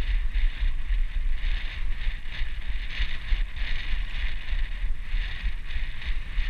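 Steady buffeting rumble from a GoPro strapped to a moving dog, with a rhythmic hiss pulsing about two to three times a second.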